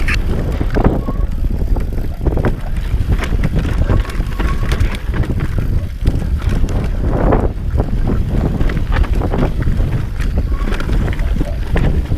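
Wind buffeting the microphone over a bike riding fast along a rough off-road trail, with constant rattles and knocks from the bumps.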